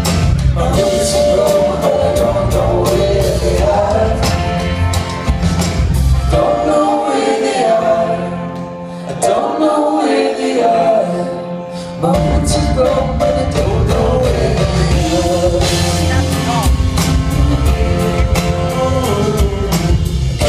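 Live indie folk band playing with acoustic guitars and drums while voices sing, recorded from within the crowd. Near the middle the bass and drums drop away for a few seconds, leaving the singing and lighter instruments, then the full band comes back in.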